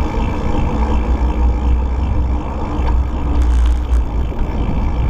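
Wind buffeting a bike-mounted camera microphone during a bicycle ride: a loud, uneven low rumble with tyre and road noise underneath.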